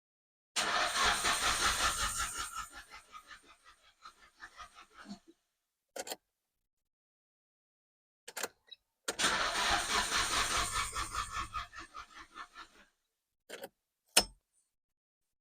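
Nissan Silvia S15's engine cranked by the starter twice without catching, each attempt a rapid, even churning that trails off after about four seconds. The car won't start after its idle air control valve was removed and cleaned, and it is being cranked with the accelerator held to the floor to cut fuel. A few sharp clicks come between and after the attempts.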